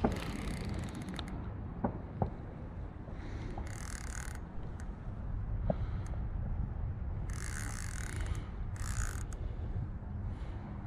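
Fishing reel ratcheting in several short bursts of rapid clicking, with a steady low rumble underneath.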